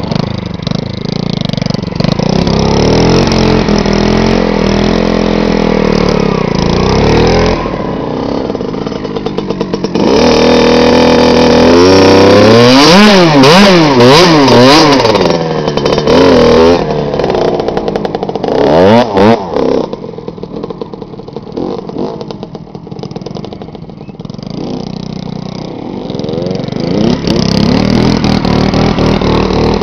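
Honda Monkey's four-stroke single-cylinder engine heard up close from a camera mounted on the bike, revving up and down again and again while riding on dirt. It is loudest and swoops hardest around the middle, then drops to a lower, quieter running for several seconds before picking up again near the end.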